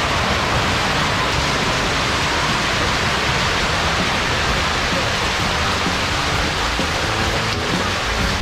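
A truckload of mullet sliding and pouring out of a tipped truck bed onto wet concrete, with water splashing: a steady, dense wet rushing like heavy rain.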